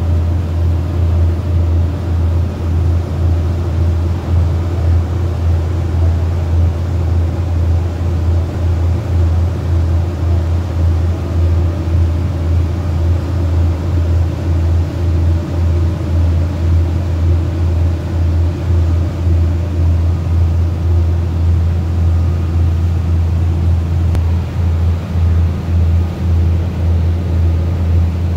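Steady deep drone of the boat's engine while under way, with the rushing hiss of its churning wake.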